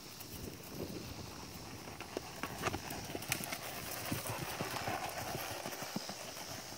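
Hoofbeats of a ridden gaited mare on grass and dirt, getting louder from about two seconds in as she comes close.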